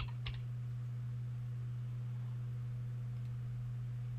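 Steady low electrical hum, with two short keyboard clicks right at the start as an item number is typed.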